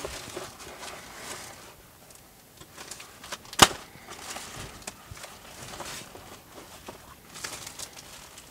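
Plastic wrap crinkling and rustling as a foam tray of impact extensions is handled in its cardboard box, with small clicks and one sharp click about three and a half seconds in.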